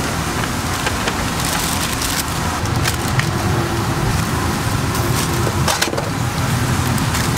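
Paper burger wrappers crinkling and rustling in several short bursts as wrapped burgers are handled, over a steady low rumble.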